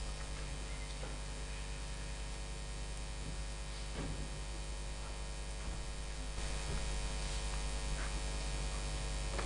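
Steady electrical mains hum in the audio feed, with a few faint knocks. The background hiss steps up a little about six and a half seconds in.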